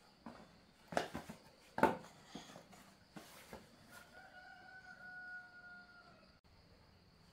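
A rooster crows once in the background, a long held call of about two seconds that dips slightly at its end. Earlier come two sharp knocks, close by.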